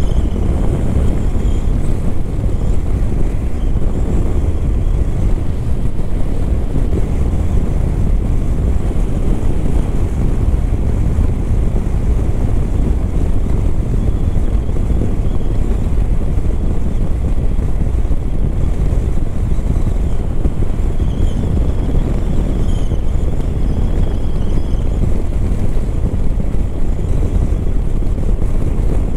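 Steady wind rush on the microphone over the Hero Xpulse 200 4V's single-cylinder engine running at an even cruising speed.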